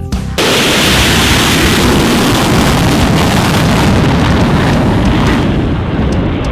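Loud, steady jet roar of an F-35A Lightning II's single Pratt & Whitney F135 turbofan, cutting in abruptly as the music stops and easing slightly near the end.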